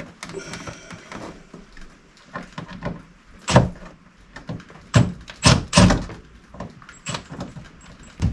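Sharp knocks and clunks of hand tools and the stock air intake being worked loose in a truck's engine bay: one loud knock about three and a half seconds in and a quick cluster of four between five and six seconds in, with lighter clicks between.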